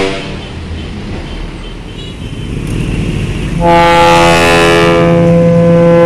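Bus ship-style air horn ('klakson kapal') sounding one long, loud blast of several steady tones together, starting about three and a half seconds in. Before it there is traffic and engine noise from an approaching bus, growing louder.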